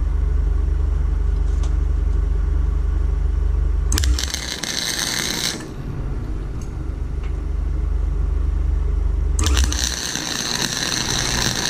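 Flux-core wire-feed welder's arc crackling in two bursts while tack-welding steel angle: a short one of about a second and a half, about four seconds in, and a longer one starting near the end. A steady low hum runs between the bursts.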